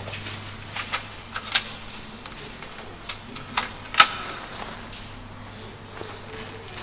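Sharp mechanical clicks and clacks of an old cassette player being handled, about seven of them in the first four seconds, the loudest about four seconds in. A steady low hum runs underneath.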